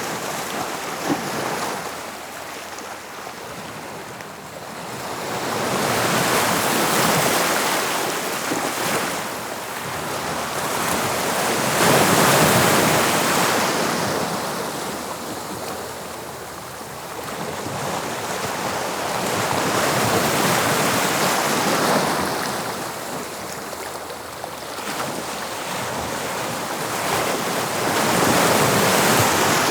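Sea waves breaking on the shore. The surf swells and falls back four times, about every seven to eight seconds.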